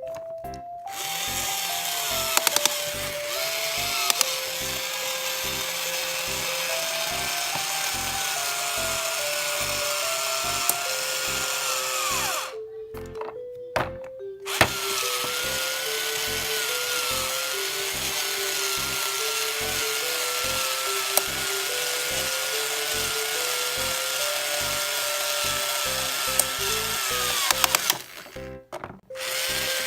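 Background music: a simple melody of single notes stepping up and down over a steady hiss, cut off briefly twice.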